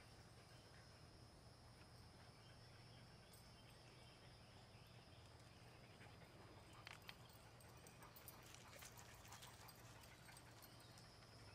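Near silence: a steady low hum and a faint high whine under the room tone, with a few faint clicks about seven to nine seconds in.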